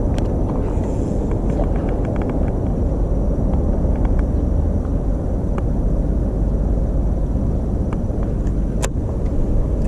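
Steady low rumble of wind buffeting the microphone outdoors, with scattered faint light clicks and one sharper click near the end.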